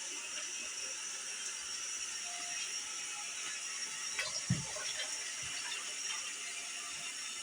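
Water running steadily into a cooking pot as it is filled for soup, with a brief knock about four and a half seconds in.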